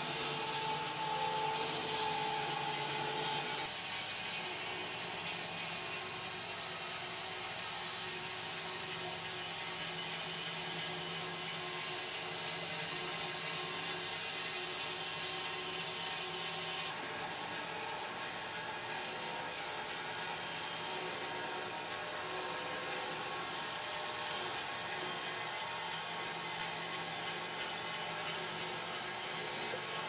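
Homemade wide-cut bandsaw mill cutting through a long silver maple log: a steady hiss from the blade in the wood, with a steady low tone from the mill's drive beneath.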